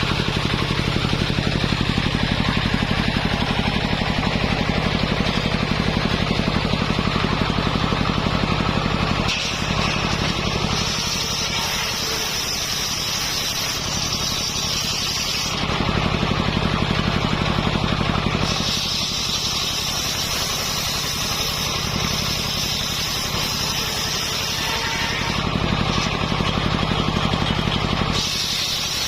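Engine-driven circular sawmill running continuously while sawing coconut palm wood into beams. Its sound switches back and forth several times between a louder, deeper engine note and a slightly quieter stretch with a high whine.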